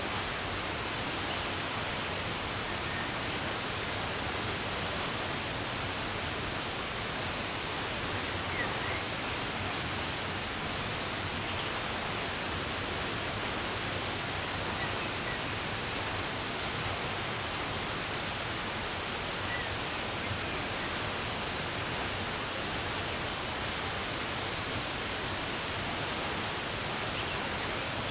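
Steady rush of running water, with a few faint bird chirps here and there.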